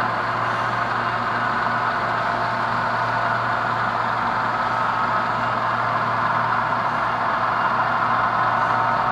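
HO scale model freight train rolling past, a steady whir of metal wheels running on the rails over a constant low hum.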